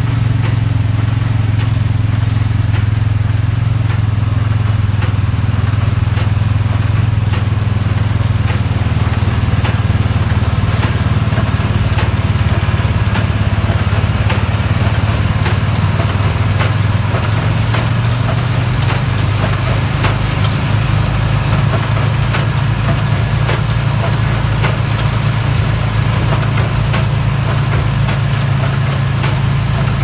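Case IH Puma 150 tractor's engine running steadily under load, pulling a Case IH LBX324XLR large square baler through wheat straw. Sharp knocks from the working baler repeat throughout over the engine's hum.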